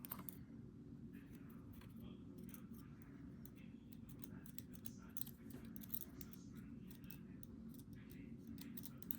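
Faint, irregular small metallic clicks and ticks of lock parts and tools being handled during disassembly of an EVVA ICS lock, over a low steady hum.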